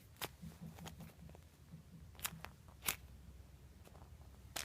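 Faint handling noises: a few soft, separate clicks and crinkles as a foam squishy toy is squeezed and turned in the hands.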